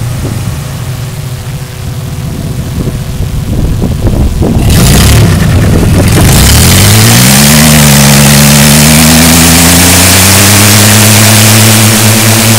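Chevrolet Astro pickup's engine rumbling at low revs, then about five seconds in loud tyre noise starts as it revs up into a burnout. The engine climbs and holds at high revs with the rear wheel spinning on the asphalt.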